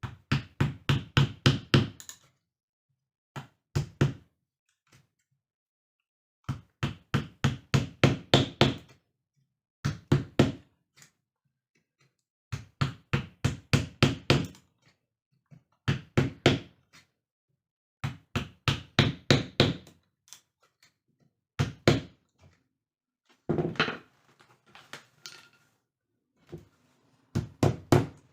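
Hammer tapping in quick runs of about five strikes a second, each run a second or two long, with short pauses between.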